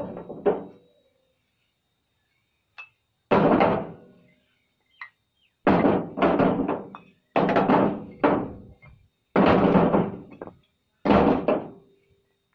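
Old clay bricks being set down and dropped onto a brick pile one at a time: about eight heavy knocks at uneven intervals, each with a short clattering tail as brick strikes brick.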